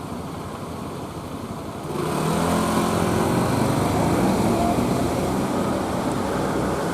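Street traffic noise, then about two seconds in a vehicle comes close and louder, its engine a steady hum over a hiss of road noise.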